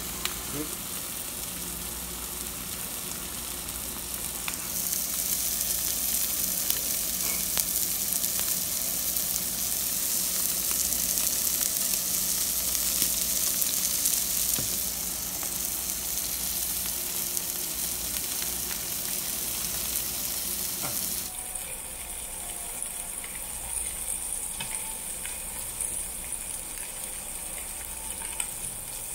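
Slices of pork belly sizzling on a tabletop barbecue grill plate heated by charcoal, a steady frying hiss that grows louder about five seconds in and falls back about twenty-one seconds in.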